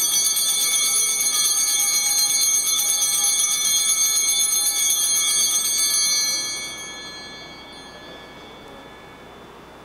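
Altar bells (sanctus bells) rung at the elevation of the chalice after the consecration: a high, shimmering peal that starts suddenly, is shaken steadily for about six seconds, then rings away.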